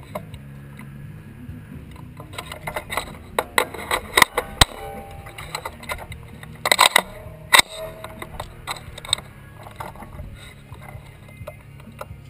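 Handling noise from a camera mounted on an AR-15 rifle: irregular clicks, knocks and rattles as the rifle is carried and shifted. A few sharp, much louder clicks come near the middle.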